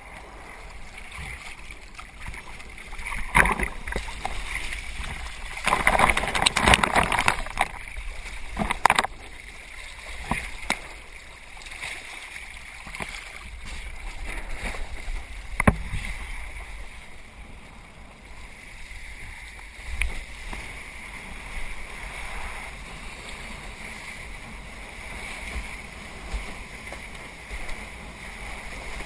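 Water rushing and splashing along a kayak hull as it moves over the sea. The splashing surges louder a few seconds in, and there are occasional sharp knocks.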